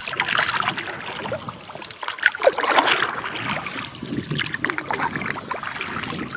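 River water lapping and trickling around a drifting boat, with small scattered splashes.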